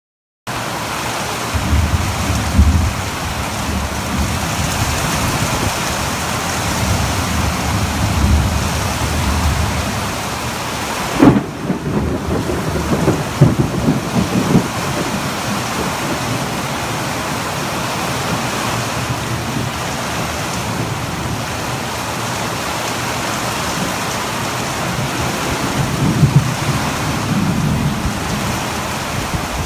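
Heavy rain hissing steadily in a thunderstorm, with low rumbles of thunder. A sharp crack about eleven seconds in is followed by a few seconds of rumbling, and more rumbles come near the end.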